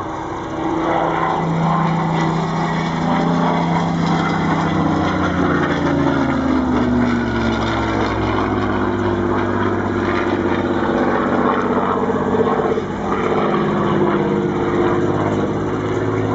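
Messerschmitt Bf 109 fighter's V12 piston engine and propeller running as it flies overhead. The engine note falls in pitch a few seconds in, then runs steady and loud.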